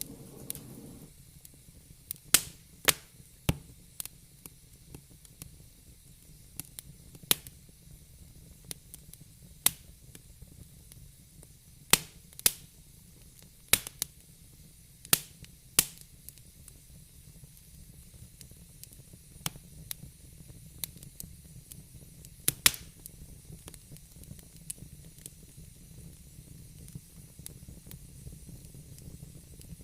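Fire burning in a fireplace, crackling with sharp, irregularly spaced pops and snaps over a low steady hiss. The pops come thickest in the first half and thin out near the end.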